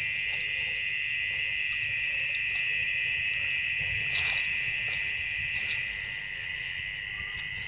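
Steady, high-pitched chorus of night insects such as crickets, a continuous trill. A faint short click comes about four seconds in.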